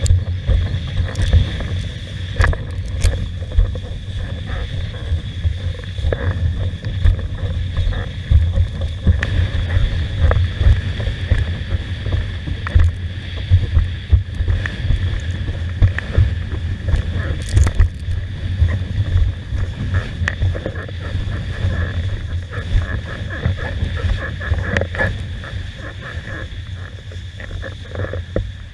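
Wind buffeting the microphone in a heavy low rumble, with water slapping and knocking irregularly against a windsurf board under sail. A steady high whine runs underneath.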